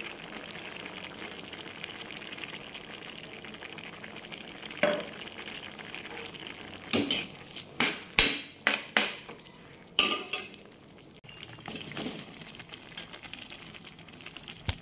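Peas, corn and shrimp simmering and bubbling in a wok, then a metal spatula stirring and scraping against the pan in a run of sharp clanks about seven to ten seconds in.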